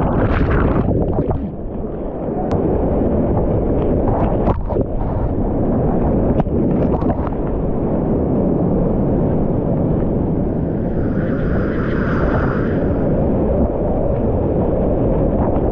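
Loud rushing whitewater of a steep rapid around a kayak, heard close on a camera in the spray, with sharp splashes. It is briefly muffled a second or two in as the camera goes under the water.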